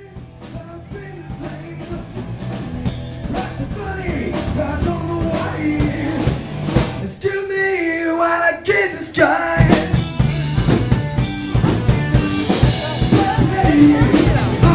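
Rock band playing: a male voice singing over electric guitar and a drum kit. The music fades in at the start. The drums and low end drop out about seven seconds in and come back in full a couple of seconds later.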